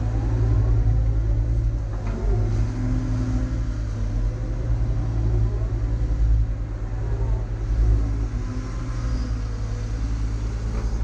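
Heavy earth-moving machine's diesel engine running steadily under load, a deep rumble with a few brief rises and falls in pitch as it works.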